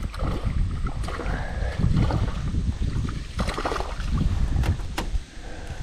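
Hooked fish splashing at the surface beside an aluminium jon boat as it is reeled in, with water sloshing and a few sharp slaps and clicks between about three and a half and five seconds in.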